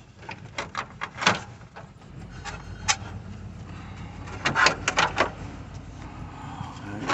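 Scattered sharp clicks and knocks of the steering column trim and tilt mechanism being handled, with a quick cluster of clicks about four and a half seconds in. A low steady hum sets in about two seconds in.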